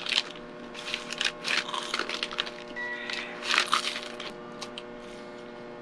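Paper bag crinkling as a fried pastelillo is handled, then crunching as the crisp fried dough is bitten into, loudest a little past the middle.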